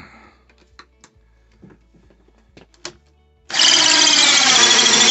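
A few faint clicks, then about three and a half seconds in a power drill turning a 1.5-inch hole saw starts suddenly and runs loud and steady, cutting the deadbolt bore hole through the door.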